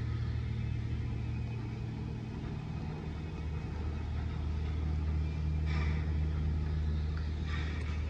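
A steady low engine rumble from a motor vehicle, its pitch shifting slightly a couple of seconds in, with a couple of brief faint rustling noises near the end.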